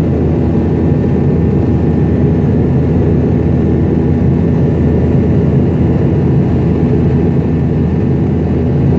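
MD-90's rear-mounted IAE V2500 jet engines in flight, heard inside the cabin as a steady low drone with a few faint steady tones above it.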